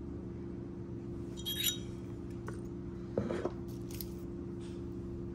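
Light metallic clinks of costume jewelry being handled: a ring taken off a steel ring mandrel and pieces shifted in a pile, with a bright clink about one and a half seconds in and a few fainter clicks later. A steady low hum runs underneath.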